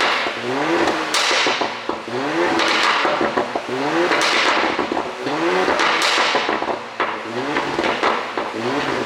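2019 Porsche Cayenne's 3.0-litre turbocharged V6 blipped over and over, about once a second. Each short rise in revs is followed by a burst of crackling exhaust pops as the throttle closes, produced by a pop-and-crackle ECU tune.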